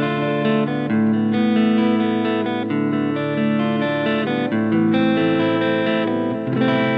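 Electric guitar played through a Blackstar Fly 3 three-watt mini amp: ringing chords and single notes that change about every half second to a second.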